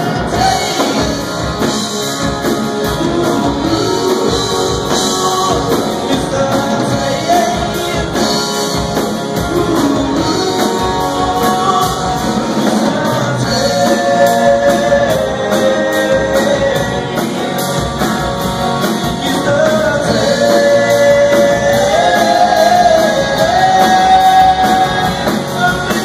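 Live rock band playing a song with a lead singer: electric guitars, keyboard and drum kit keeping a steady beat. The vocal line is strongest in the second half.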